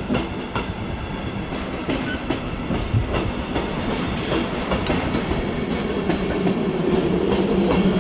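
Deutsche Bahn Intercity train passing close by, its passenger coaches' wheels clicking over the rail joints in a steady clickety-clack. It grows louder as the coaches go by, and a low hum builds near the end.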